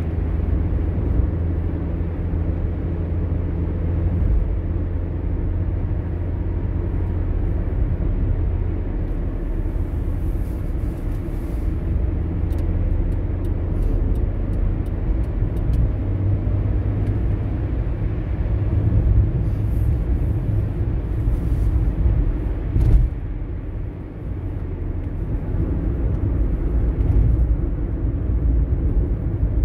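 A car driving along a road, with a steady low rumble of tyres and engine. There are a few faint ticks in the middle and a brief knock a little before the end, after which the rumble dips for a moment.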